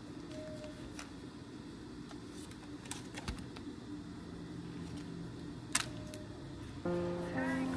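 Scattered light clicks and taps of stationery being handled on a table, a postcard in a plastic sleeve and a spiral diary, with one sharper click near the end, over a steady faint background. Soft guitar background music comes in just before the end.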